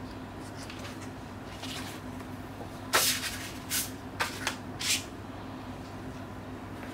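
Handling noise of a plastic Blu-ray case and its cardboard outer box. A sharp scrape about three seconds in is followed by four shorter rubbing scrapes, over a faint steady hum.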